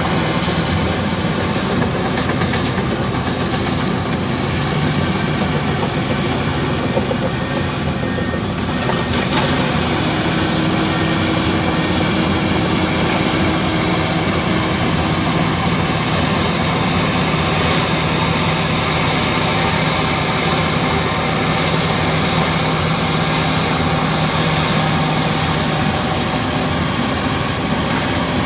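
Komatsu D65 bulldozer's diesel engine running steadily and loudly under load.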